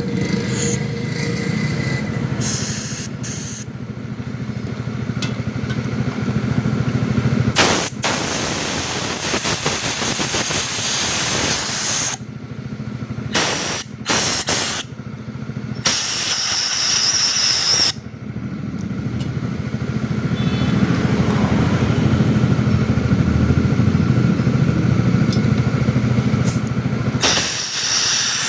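Repeated bursts of spraying hiss, some short and one long near the end, as a motorcycle fuel pump assembly is blasted clean with aerosol carburettor cleaner and compressed air, over a steady low hum.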